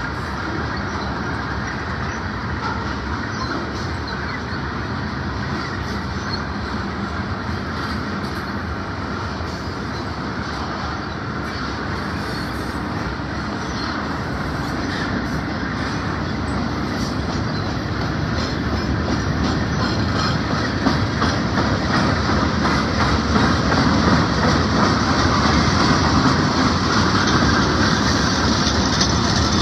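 Freight cars rolling past on the rails: a steady rumble with the clatter of steel wheels over rail joints, growing louder over the second half.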